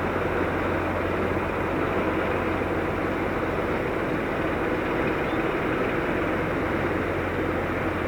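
Steady mechanical roar over a constant low hum, unchanging throughout, with no distinct events.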